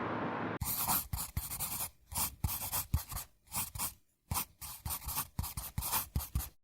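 A steady hiss cuts off about half a second in, followed by irregular bursts of scratching and rustling close to the microphone that stop abruptly near the end.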